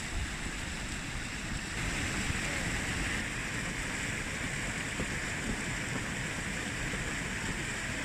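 Steady rush of a mountain stream's flowing water, a little louder from about two seconds in.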